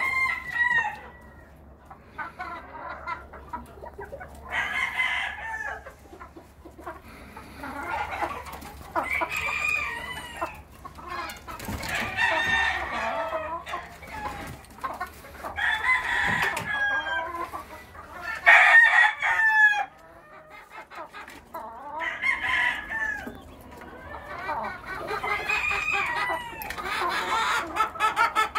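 Black chickens, roosters among them, crowing and clucking in bouts every couple of seconds. The loudest call comes about two-thirds of the way through, and near the end there is a quick run of short, repeated notes.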